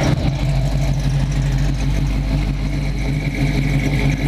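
Exhaust of a 1979 Pontiac Firebird Trans Am's 6.6-litre V8 at a steady, smooth idle, heard from behind the car. The engine is freshly built and not yet fully broken in.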